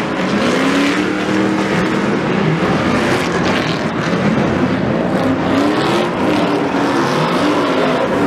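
Stadium Super Truck race engines revving hard, their pitch rising and falling again and again as the trucks accelerate and back off around the track.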